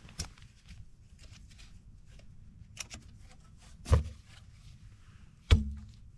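Scattered light clicks and knocks, typical of handling objects, with two louder thuds about four and five and a half seconds in.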